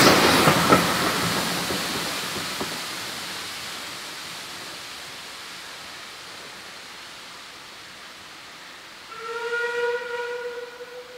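An Andrew Barclay saddle-tank steam locomotive and brake van passing and drawing away, the rush of the train fading steadily over several seconds. About nine seconds in, a steam whistle sounds one steady note for about two seconds.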